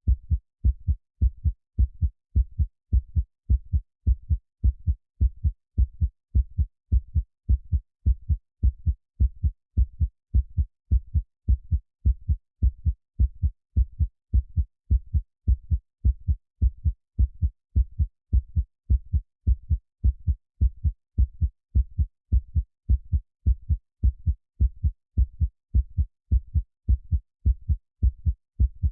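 Heartbeat sound: a steady, unchanging rhythm of deep thumps, a little over one a second, with nothing high-pitched in it.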